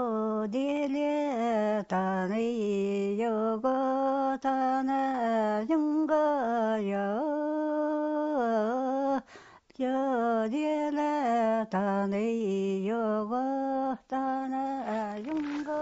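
A single unaccompanied voice singing long, held notes that slide from one pitch to the next, chant-like, with a short break about nine and a half seconds in.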